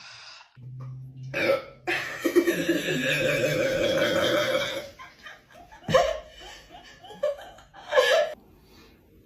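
A person burping: one long, drawn-out, pitched burp of nearly three seconds, followed by a few short, sharp burps.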